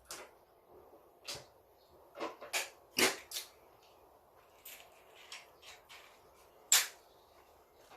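Close-miked eating sounds: about ten irregular sharp clicks and smacks of mouth, food and utensils, the loudest near the end.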